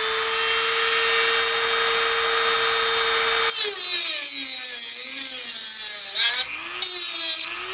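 Dremel rotary tool cutting into the metal case of a tubular filter capacitor. It runs at a steady high whine for the first three seconds or so; then the sound changes and the pitch wavers and sags as the bit bears on the metal. It cuts out briefly twice near the end.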